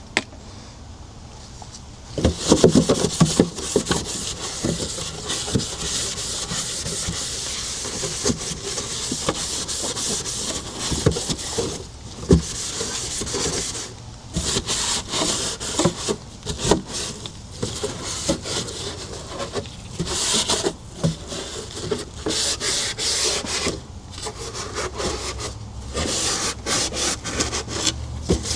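Scrubbing of a refrigerator's smoke-stained surface: repeated, uneven rubbing strokes with occasional light knocks.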